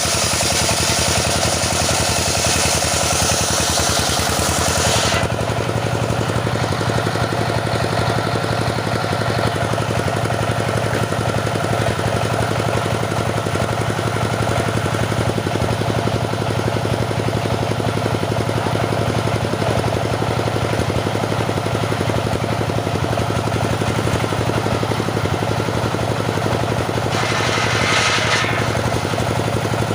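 Petrol-engined wood saw running steadily while sawing teak. A loud hiss over the engine stops suddenly about five seconds in, and a short hiss comes back near the end.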